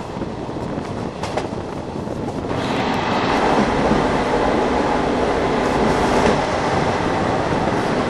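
An ALe 582 electric regional train running along the line, heard from an open window: a steady rumble of wheels on rail that grows louder and brighter about two and a half seconds in.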